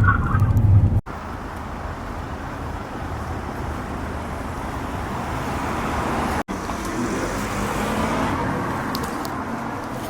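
Road traffic noise: a steady rush of passing cars, broken by two abrupt cuts, about a second in and again a little past halfway.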